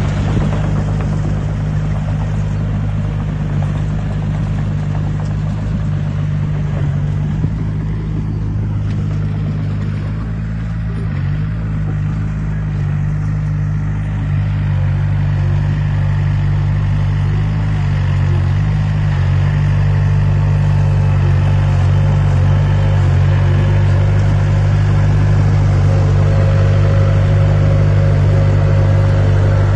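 Heavy construction-machine diesel engine running steadily with a deep, even drone, growing louder in the second half.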